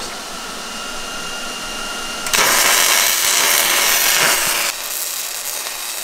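Wire-feed (MIG-gun) welder striking an arc on galvanized steel plate: a steady background hum, then about two seconds in the arc starts with a loud even hiss that eases off slightly after a couple of seconds and keeps going.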